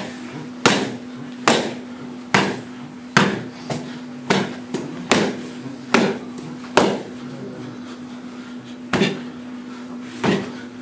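Gloved punches landing on leather focus mitts: about a dozen sharp smacks in quick succession, roughly one a second, then a pause of about two seconds before two more near the end. A steady low hum sits underneath.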